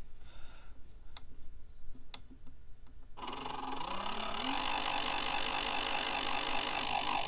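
Two faint clicks, then about three seconds in a small 12 V DC motor for a homemade guitar pickup winder starts up. Its whine rises in pitch as it spins up, then it runs at a steady speed through its speed controller. This is the motor's first power-up after wiring, and it shows the wiring works.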